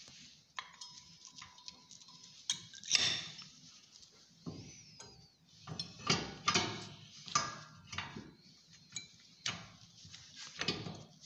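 Irregular metallic clicks and clinks of brake pads and their steel backing plates being handled and seated in a disc-brake caliper bracket, some knocks ringing briefly.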